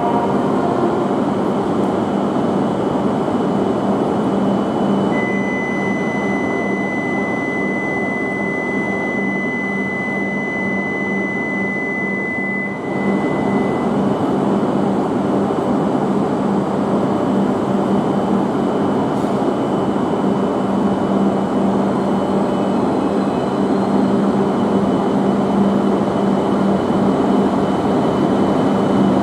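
Shinkansen train at a station platform: a steady rumble with a constant low hum. A high, steady tone sounds from about five seconds in until about thirteen seconds in.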